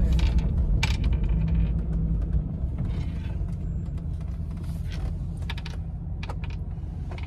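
Low rumble inside a moving pickup truck's cabin, slowly getting quieter, with scattered light clicks and creaks from the cab.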